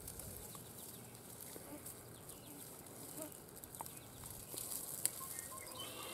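Faint crackling and rustling of dry leaves and stems as a North American porcupine pushes and forages through brush, with a sharper snap about five seconds in.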